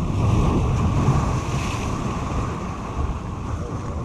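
Surf washing and breaking over the jetty rocks, with wind buffeting the microphone. The wash swells up about one and a half seconds in.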